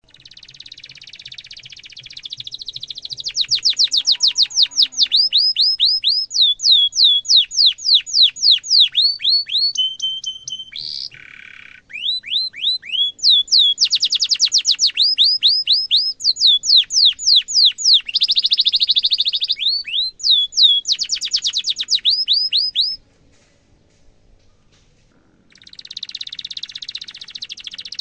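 Domestic canary singing a long, loud song: fast runs of repeated downward-sliding 'cuit cuit' notes and rolling trills. Near the end the song breaks off for about two seconds, then a buzzy roll starts up.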